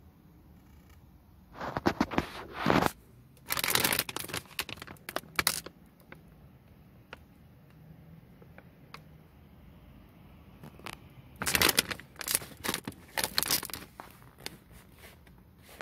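A foil-lined Wise potato chip bag crinkling as it is handled, in three loud bursts, the last one near the end as the bag is pulled open.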